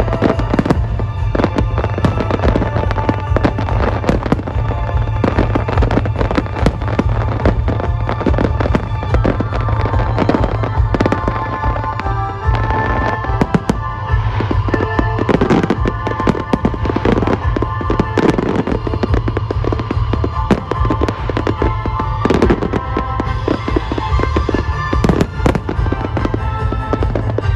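An aerial fireworks display, with shells bursting in rapid, overlapping succession throughout. Music with sustained tones plays underneath.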